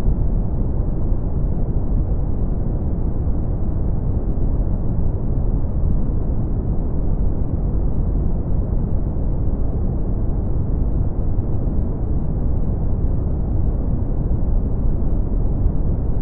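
Steady brown noise: an even, deep hiss weighted heavily to the low end, with no change in level or character.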